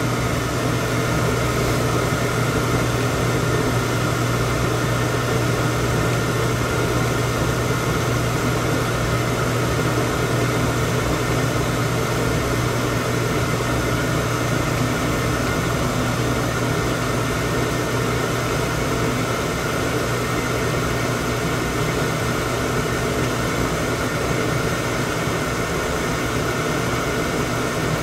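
80% AFUE gas furnace firing with its burners lit and its draft inducer motor running: a steady hum over an even rushing noise. The circulating blower has been disconnected, so the furnace is overheating on purpose to test the high-temperature limit switch.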